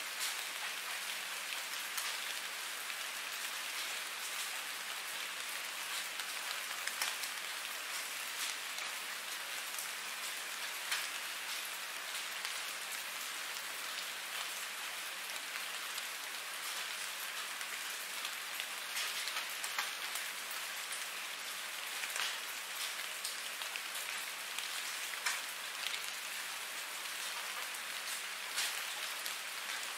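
Steady rain falling on a hard surface: an even hiss with frequent sharper individual drop hits.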